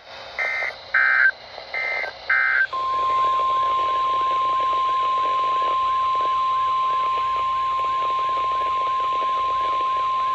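NOAA Weather Radio EAS alert signalling: a few short warbling digital data bursts, then the steady single-pitch 1050 Hz Weather Alert Tone, which starts about a quarter of the way in and holds, over a faint radio hiss. The tone signals that a new warning broadcast follows.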